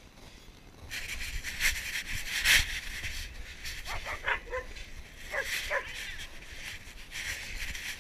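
Dog barking: a few short barks falling in pitch about four seconds in and two more about a second and a half later, over a steady rustling hiss from the dog-worn camera's movement.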